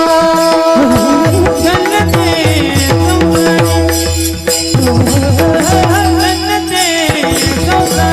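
Marathi devotional kirtan music: a singer's ornamented, wavering melody over long held steady notes, with drum strokes and jingling percussion keeping the beat.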